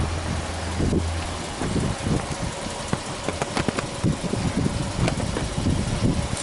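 Subaru Impreza Anesis 1.5i's flat-four boxer engine idling with the bonnet open, with irregular low rumbles and scattered clicks over it.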